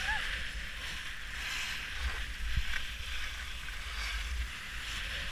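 Skis sliding over groomed snow: a scraping hiss that swells and fades every second or so, over a low wind rumble on the microphone.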